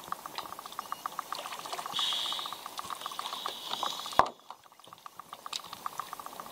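Seawater sloshing and splashing around a camera held at the surface, with a fast steady ticking of about ten ticks a second. About four seconds in there is a sharp knock and the sound turns dull and muffled as the camera dips under the water.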